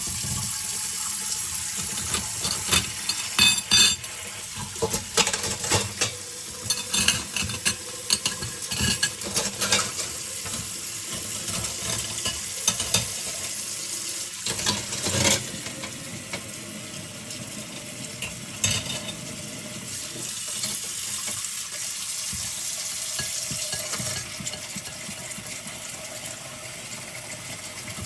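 Tap water running into a kitchen sink while small bowls and utensils are pre-rinsed under it, with frequent clinks and knocks of dishes and cutlery. The clinking is busiest in the first half, leaving mostly the steady rush of water later.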